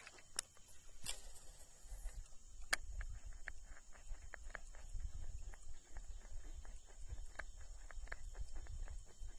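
Daiwa Tatula baitcasting reel and rod during a cast and retrieve. A few sharp clicks and a brief hiss come first, then a steady run of light clicks, about three to four a second, as the reel is cranked and the walk-the-dog lure is worked back.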